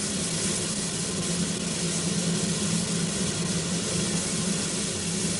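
Narrow-gauge steam locomotive standing with a steady hiss of escaping steam, a low hum beneath it.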